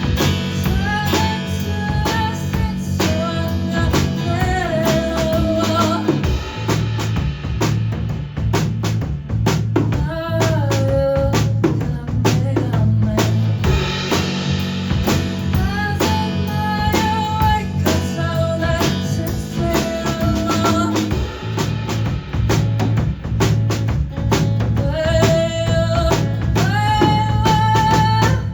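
A band playing a song live: a sung melody over guitar, bass and a drum kit with rimshot hits, at a steady beat.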